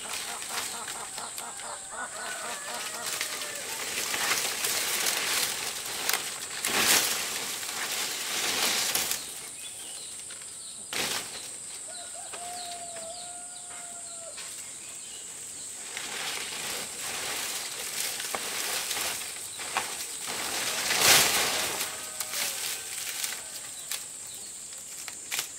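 Dry palm fronds rustling and scraping as they are laid and pressed onto a bamboo roof frame, in irregular bursts, with the loudest rustle about 21 seconds in. A steady high-pitched tone runs underneath.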